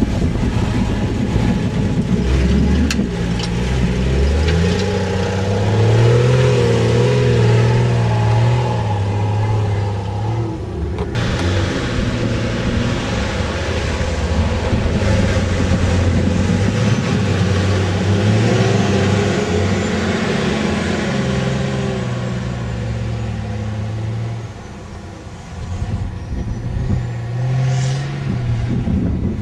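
Off-road 4x4 engines, a Jeep Wrangler and then a Nissan Patrol, revving and labouring as they drive through soft dune sand, the engine note climbing and falling with the throttle. It eases off briefly near the end, then picks up again.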